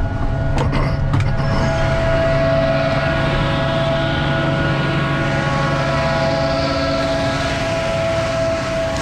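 Concrete mixer truck running steadily, a constant engine and drum-drive drone with a high steady whine over it.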